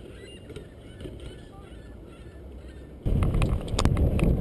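A BMX bike riding through a concrete skate bowl, filmed from a camera on the rider or bike: a loud low rumble of tyres on concrete and wind on the microphone, with a few sharp rattles, starting suddenly about three seconds in. Before that, a faint outdoor background with short scattered calls.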